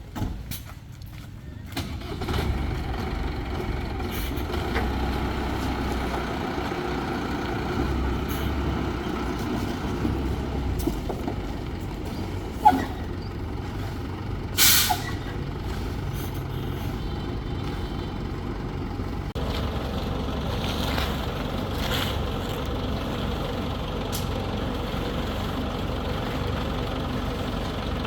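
Crane's heavy engine running steadily, coming up in level about two seconds in. About halfway through there is a sharp click, then a short, loud hiss of released air.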